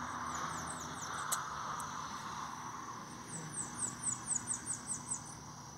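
Small songbird singing a fast run of high, thin, falling notes, about five a second, for a couple of seconds past the middle, after a few scattered notes near the start. A steady high tone hums underneath.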